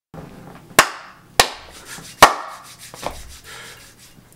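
Hands clapping and slapping together: four sharp slaps half a second to a second apart, the third the loudest, with softer rubbing sounds between them.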